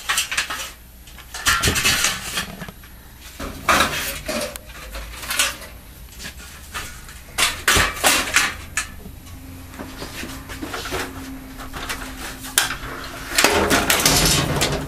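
Irregular clattering, knocks and rattles as the parabolic retrofit frame is handled and a ladder is climbed up to the ceiling grid.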